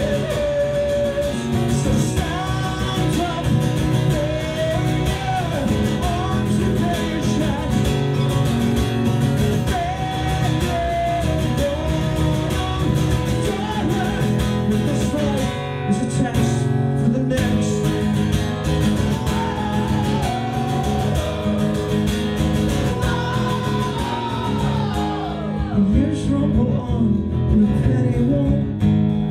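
A man singing over a strummed acoustic guitar: a live solo acoustic punk song.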